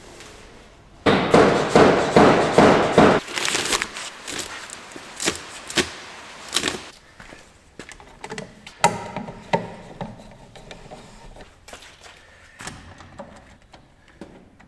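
A dense two-second burst of knocking and scraping about a second in, then scattered light clicks and taps of a screwdriver fastening a plastic outlet cover plate.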